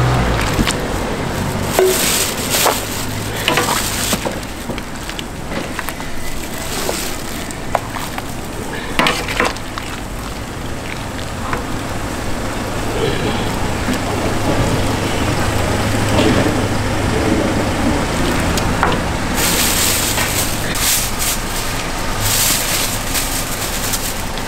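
Soup bubbling in a large pot with a steady hiss while it is stirred and ladled out, with scrapes and clinks of the ladle and containers now and then.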